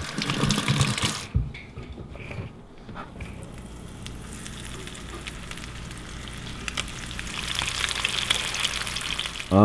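Battered crappie fillets frying in hot oil in a pan: a steady sizzle with small crackles and pops that gets louder near the end. A short burst of noise comes in the first second.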